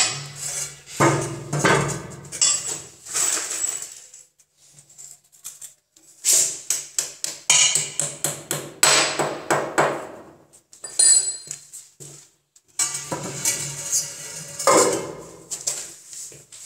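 Hand hammer tapping in three quick runs of sharp strikes with short pauses between, working at the toilet's floor bolt holes.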